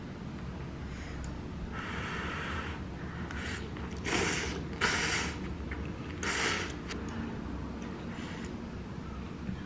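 A person slurping instant ramyeon noodles: a softer slurp about two seconds in, then three louder slurps between four and seven seconds in.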